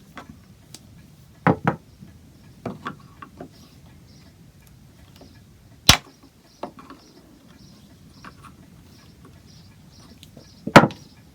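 Scattered clicks and knocks of cutters clipping a rusted steel nail stuck in an oak chair rail, with a sharp snap about halfway through and the loudest knock near the end.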